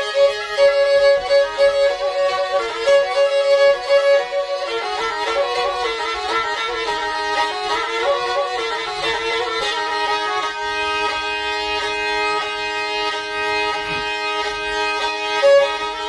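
Black Sea kemençe playing an instrumental passage of a Black Sea folk song, without singing. Quick repeated short notes in the first few seconds give way to longer held notes over a steady drone from about ten seconds in.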